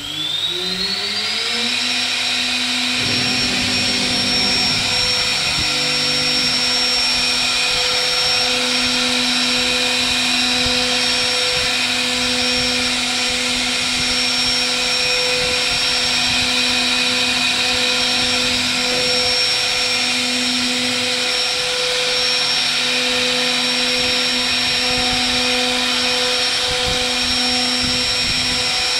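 CNC router spindle with a small bit, spinning up with a rising whine that levels off about two seconds in, then running steadily while it cuts a groove in a wooden door panel. A high whine stays steady over a lower hum that comes and goes.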